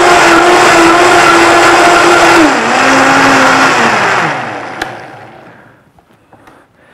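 Vitamix blender running at high speed, blending a green smoothie with a loud, steady whine. About two and a half seconds in the pitch steps down, then the motor winds down and stops, with a single click just before it fades out.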